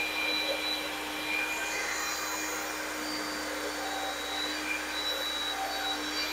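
Power drill running steadily, spinning an engine valve chucked in it while a shop rag is held against the valve head to wipe it clean during refinishing.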